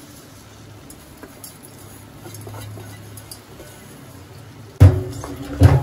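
Spoon stirring rice into cooked spinach in a metal pressure cooker pot, with loud knocks and scraping against the pot starting near the end. Before that, only a quiet low hum.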